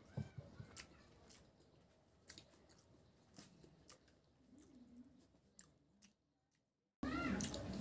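Close-miked chewing of rice and pork curry, with sharp wet mouth clicks. The sound cuts out to dead silence for about a second near the end, then returns much louder with chewing and crunching.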